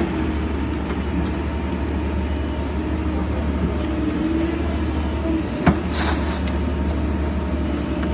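Engine running steadily with a low rumble, with one sharp knock a little past halfway followed by a brief hiss.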